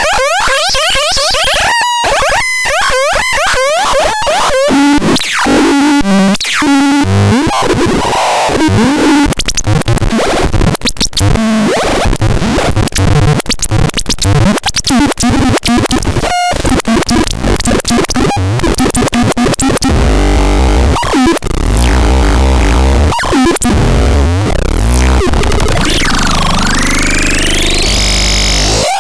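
Synthesizer making harsh electronic noise and rapidly sweeping tones, with stepped low notes in the second half and a long glide that dips and climbs back up near the end.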